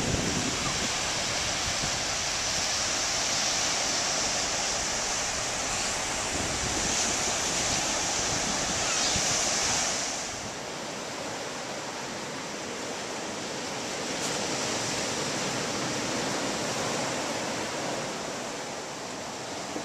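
Ocean surf washing onto a beach, with wind on the microphone. About ten seconds in it drops quieter and thinner.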